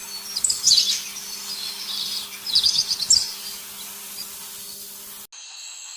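Songbirds chirping in two quick flurries of high notes, about half a second in and again around three seconds, over a steady high hiss and a faint low hum. The background changes abruptly a little past five seconds.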